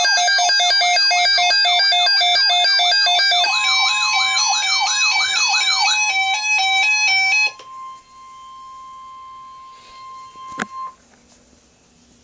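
Loud layered electronic siren sweeps, rising and falling about three times a second, stop abruptly about seven and a half seconds in. Beneath them from about three and a half seconds, and then alone and much quieter, a steady single-pitch beep runs on, the NOAA Weather Radio warning alarm tone that precedes an alert, until it cuts off with a click near the end.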